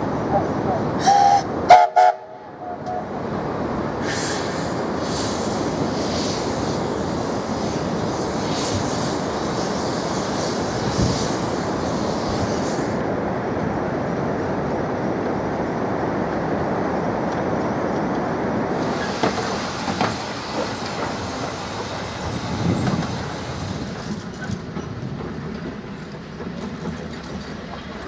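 Steam whistle of the small steam locomotive Kerr Stuart 4185 sounding two short blasts about a second in, followed by the steady running noise of the train moving along the track, which fades slightly near the end.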